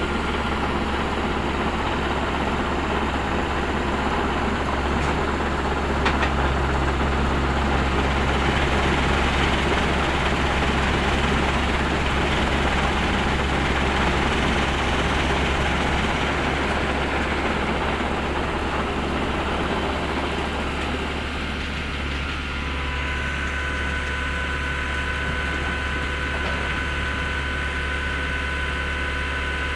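Finlay 683 Supertrak tracked mobile screen running, its Deutz turbo diesel engine and vibrating screen box making a loud, steady low drone. Near the end it gets slightly quieter and a thin steady whine comes in.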